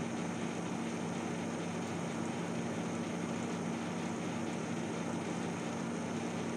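Steady low machine hum with an even hiss, holding one pitch without change.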